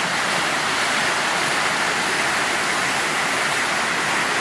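Small waterfall rushing steadily over rocks, an even, unbroken noise of falling water.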